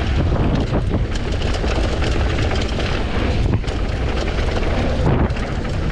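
Wind rushing over the action camera's microphone and tyres rumbling on dirt and rock as a Commencal Supreme DH downhill bike descends at speed, with scattered knocks and rattles from the rough trail.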